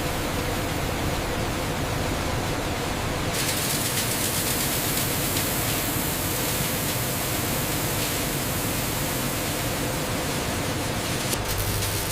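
Steady factory machinery noise from a production line, an even hiss and rumble, with a brighter high hiss joining about three seconds in.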